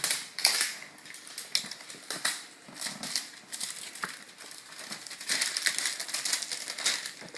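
Packaging wrap crinkling and rustling as it is pulled away by hand, with scattered sharp taps and clicks throughout.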